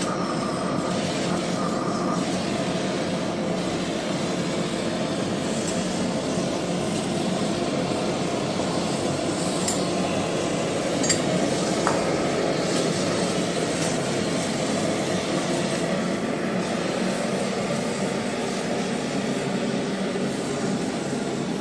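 Gas welding torch flame burning with a steady, even rush of noise while a brass pot is heated on firebricks. A few light metallic clinks come around the middle.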